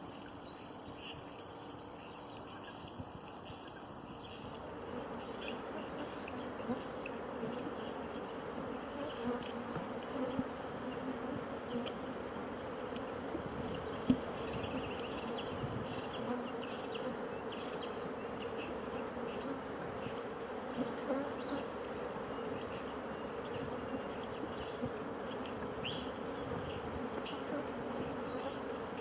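Insects buzzing steadily, a hum that sets in a few seconds in, with small birds chirping over it and one sharp tick about halfway through.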